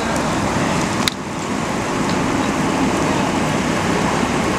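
Tractor-trailer fire burning hard, a steady rushing noise full of crackle, with one sharp pop about a second in.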